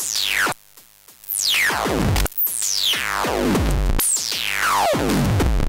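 Akai Tom Cat drum machine pattern run through a Schlappi Engineering Angle Grinder filter module in a 'super stereo' setting: band-pass filtered in the left channel and high-pass in the right. It plays electronic drum hits with low thuds and a falling pitch sweep about once a second. It drops almost to silence for most of a second near the start, then comes back.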